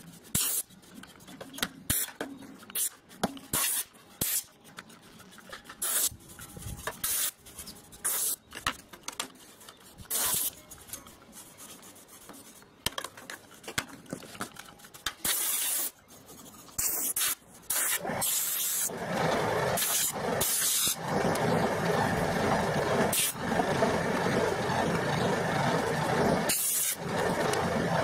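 Compressed air from a blow gun on a coiled hose, fired in many short hissing blasts to blow dust off a valve amplifier chassis. About 18 seconds in, a steady mechanical running noise starts and carries on, heavier in the low and middle range and broken by a few short gaps.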